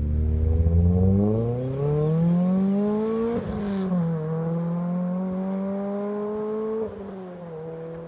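Renault Clio 3 RS's 2-litre naturally aspirated four-cylinder engine accelerating hard. The pitch climbs through a gear, drops at a shift about three and a half seconds in, and climbs again until a second shift near seven seconds, after which it runs quieter.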